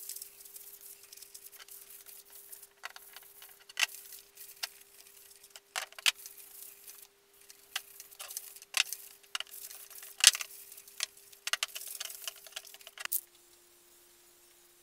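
Fine 320-grit abrasive sponge rubbed by hand over primer-coated MDF table legs: dry scratchy scuffing in irregular strokes with occasional sharper scrapes and knocks. It stops suddenly about 13 seconds in.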